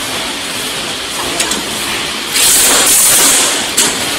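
Corded electric wrench tightening screws into a stainless-steel elevator panel: it runs in a loud hissing burst a little over halfway through, lasting just over a second, with sharp metallic clicks around it.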